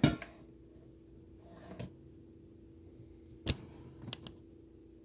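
A few sharp knocks and taps as the air fryer basket is handled and chicken thighs are set into it: a loud knock at the start, a smaller tap near two seconds, another loud knock about three and a half seconds in, and light taps just after. A faint steady hum runs underneath.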